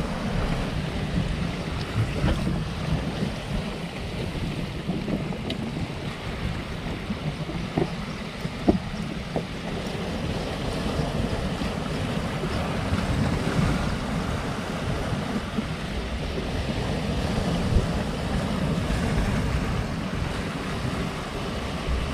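Sea surf washing over a rocky shoreline, with wind buffeting the microphone; a couple of faint clicks about eight seconds in.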